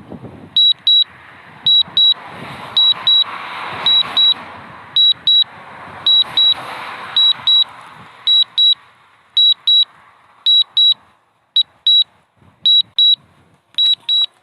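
DJI Mavic Mini remote controller beeping in short high double beeps, about one pair a second: the alert it sounds while the drone is returning to home. Underneath, gusting wind rumbles on the microphone, swelling and easing, then dies away about three quarters of the way through.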